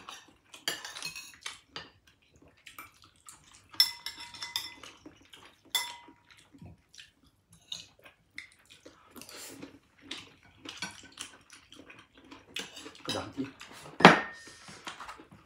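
A spoon and dishes clinking and scraping, with a few clear rings. The loudest is a sharp clink near the end.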